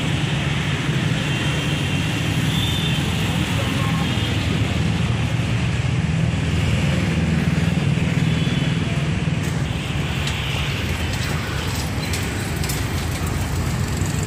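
Steady street traffic noise: a continuous low engine rumble from vehicles on the road, with no break.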